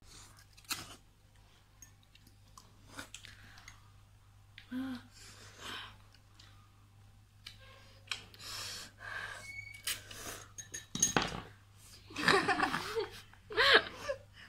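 Forks clinking and scraping in glass bowls as two people eat noodles, with scattered short eating noises. Near the end a voice calls out twice, the loudest sounds.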